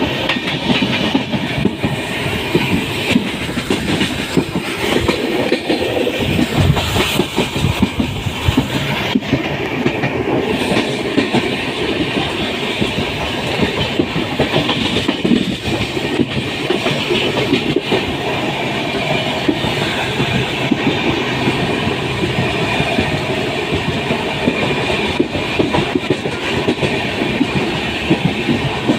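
Passenger train running along the track, its wheels clattering steadily over the rails in a dense, unbroken rumble.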